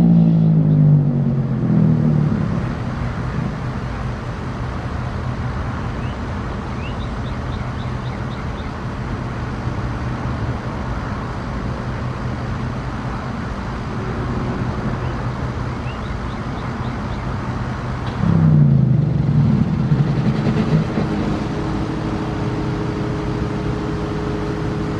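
Federal Signal Thunderbolt 1000A siren winding down: its tone falls away into a low growl in the first two seconds, leaving a steady rushing drone with a low hum. About 18 seconds in, another louder falling growl sounds and settles into steady lower tones.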